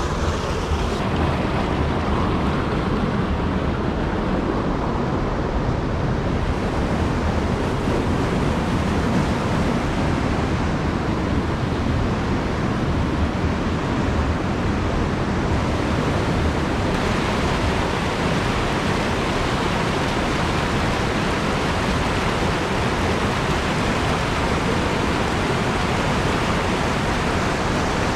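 A small, rocky mountain stream rushing over boulders and little cascades, a steady full hiss of water. The hiss grows brighter about two-thirds of the way in, as the whitewater comes closer.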